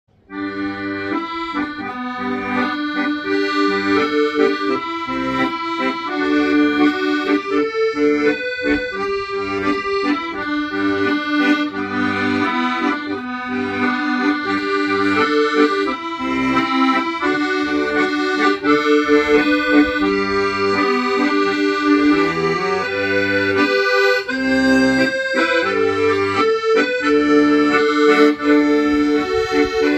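Accordion playing a hymn tune: a melody over sustained chords and a regular bass line, starting at once from silence.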